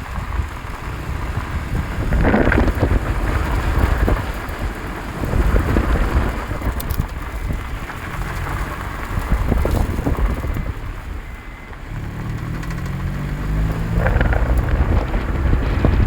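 Eighth-generation Honda Civic on the move: a steady low rumble of wind and road noise buffeting the microphone, with an engine note rising about twelve seconds in.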